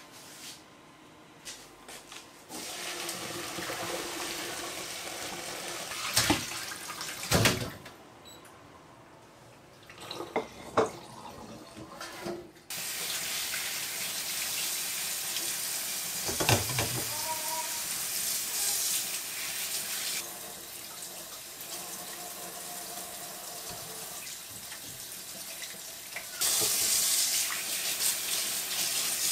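Kitchen tap water pouring into a stainless steel sink and over pork bones in a metal mesh strainer while they are rinsed and rubbed clean by hand. The water starts about two seconds in, with a few sharp knocks soon after. It eases off for a few seconds, then runs steadily again and gets louder near the end.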